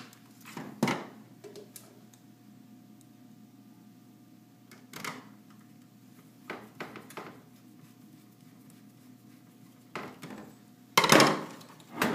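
Scattered small clicks and knocks of a screwdriver and metal server parts being handled, over a faint steady hum. Near the end comes a louder clatter of sheet metal as the steel half of the server sled is lifted and moved.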